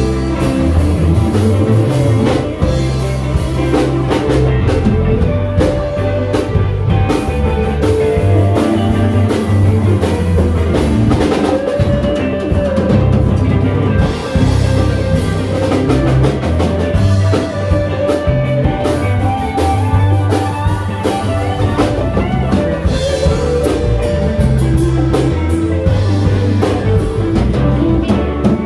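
A band playing live, with drums and guitar, at a steady loud level.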